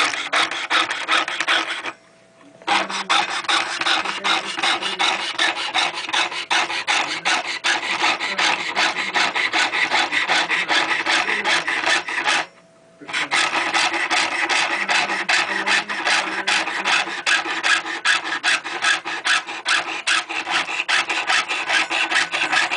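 Rapid, steady back-and-forth strokes of a hand file shaping a watch clamp by hand, with two short pauses: one about two seconds in, one a little past the middle.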